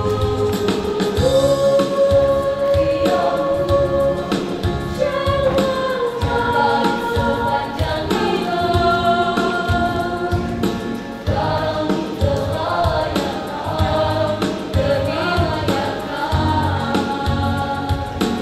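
Youth choir of women's and men's voices singing a gospel song in parts, with a steady low beat underneath.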